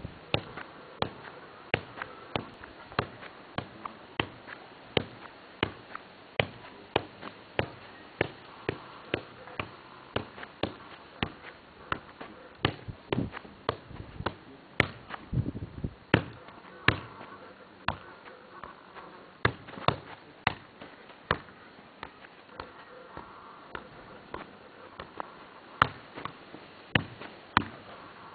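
A football being juggled keepy-uppy style: short sharp thuds of each touch on the ball in a steady rhythm of about two a second, some touches louder than others.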